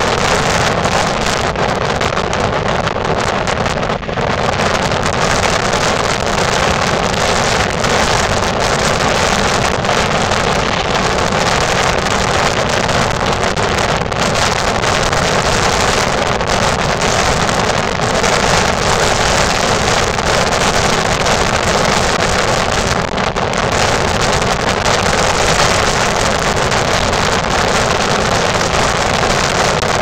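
Strong wind buffeting the microphone in a loud, steady rush, the wind strong enough to blow a waterfall back up its cliff.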